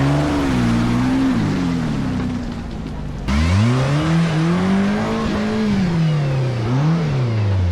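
Off-road vehicle's engine revving up and down under changing throttle. About three seconds in, the sound cuts abruptly to another stretch of revving that climbs, holds and dips.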